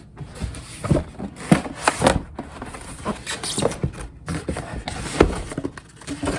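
Cardboard shipping box being opened and handled on a table: irregular knocks, scrapes and rustles of cardboard and packing, with sharper knocks about one and a half, two and five seconds in.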